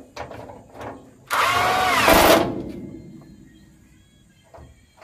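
Cordless impact wrench running in one loud burst of about a second, driving home a nut on the fuel tank's mounting bracket. A few light clicks of handling come before it.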